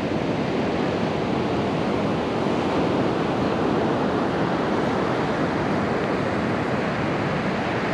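Ocean surf breaking and washing up the beach, a steady rush.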